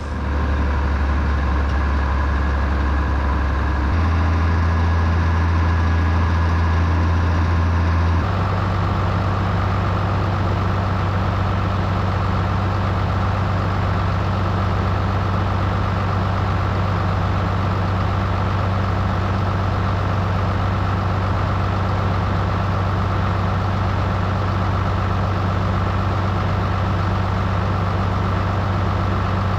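International 686 tractor engine running steadily. Its low hum shifts abruptly to a new pitch twice in the first eight seconds, then holds steady.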